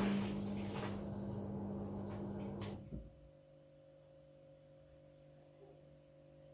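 Front-loading washing machine running with a steady hum and rushing noise, which cuts off about three seconds in with a short clunk, leaving a faint hum.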